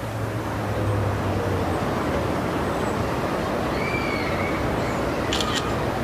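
Steady outdoor urban background noise, like distant traffic, with a low hum in the first second or two. A couple of faint short gliding tones come about four seconds in, and a brief high click follows near the end.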